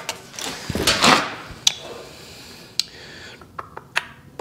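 Tape measure and felt marker being handled against a sheet-metal rocker panel: a scraping stroke about a second in, then scattered light clicks and taps of the tape and marker on the metal.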